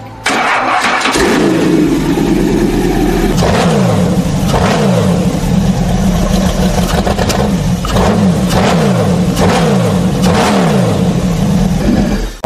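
Dodge Tomahawk's 8.3-litre Dodge Viper V10 engine catches just after the start and runs. From about three seconds in it is blipped over and over, the revs jumping up and falling away again about once a second.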